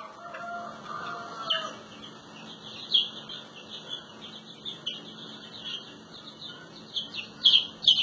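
Baby chick peeping: a string of short, high, falling peeps, coming louder and closer together near the end. A lower drawn-out note sounds in the first second and a half.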